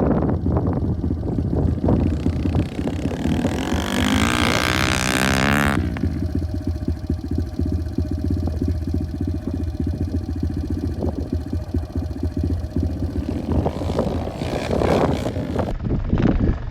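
110cc pit bike engine running under riding, revving up about four seconds in, then running steadily with low rumble before another swell near the end.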